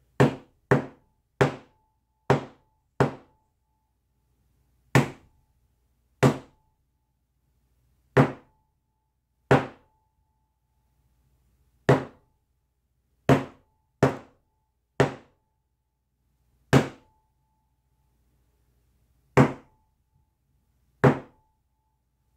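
Tack hammer striking a hard painting panel covered in wet acrylic paint, about sixteen sharp separate knocks at uneven intervals: a quick run of blows in the first three seconds, then single strikes one to three seconds apart.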